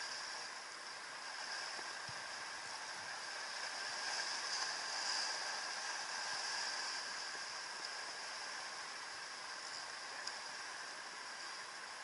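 Ocean surf washing and foaming over shoreline rocks: a steady hiss that swells a little in the middle.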